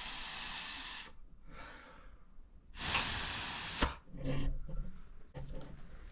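Two bursts of hissing, rushing air, each about a second long, with a fainter puff between them and a sharp click at the end of the second, followed by light knocks.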